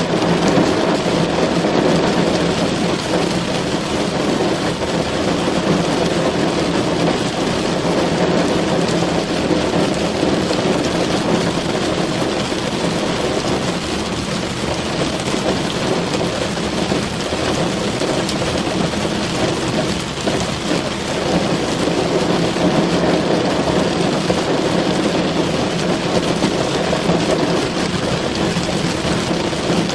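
Steady rain drumming on a car's roof and windows, heard from inside the car: a dense, even patter with a low rumble underneath.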